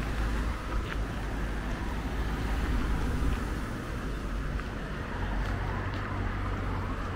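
Steady low outdoor rumble with no distinct events, a little louder around the middle.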